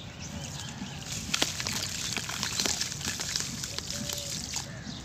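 Dry sand-cement powder trickling through fingers into a plastic basin of water: a soft, steady patter with scattered small grainy ticks.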